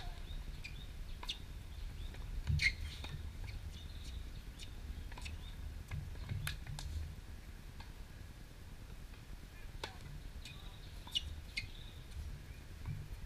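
Tennis rally on a hard court: racquet strikes and ball bounces as sharp clicks every second or so, the loudest about two and a half seconds in, with a few short high squeaks or calls in between.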